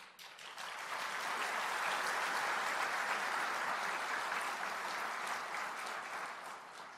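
Audience applauding in a large hall. The clapping rises in the first second, holds steady, and fades out near the end.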